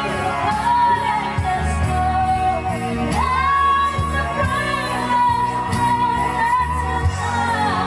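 A woman belting a song into a karaoke microphone over a pop backing track with a steady beat; about three seconds in her voice swoops up into a long held high note.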